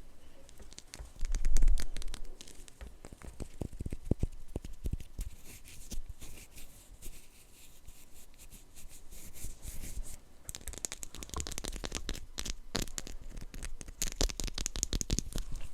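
Blind-box packaging being handled, torn open and crinkled, with scattered clicks and taps. About a second and a half in there is a dull thump. The crinkling grows denser and brighter over the last five seconds.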